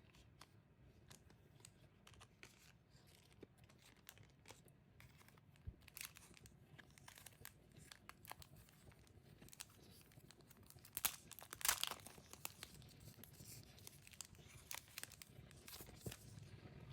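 Faint rustling and crinkling of packaging as items from a merchandise kit are handled and opened, with a louder burst of crinkling and tearing about eleven seconds in.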